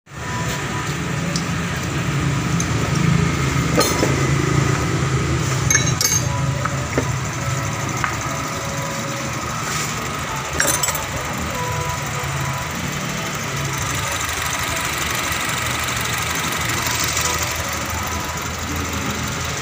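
Honda Mobilio engine idling steadily, with a few light clicks about 4, 6 and 11 seconds in.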